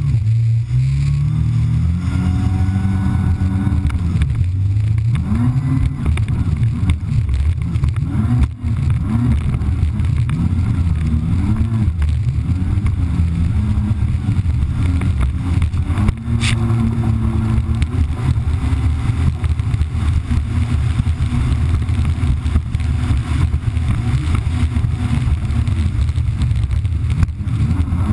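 Kawasaki Ultra 300X jet ski's supercharged four-cylinder engine running at speed on the water. Its pitch climbs in the first few seconds, then rises and falls again and again as the throttle changes. It sits under a steady rush of water and wind.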